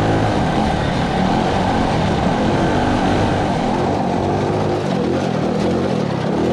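Modified single-cylinder Honda-clone go-kart engine, a big-valve, big-cam Tillotson 225, running under load at speed, with wind rushing over the microphone. The engine note wavers, eases about five seconds in, then climbs again near the end.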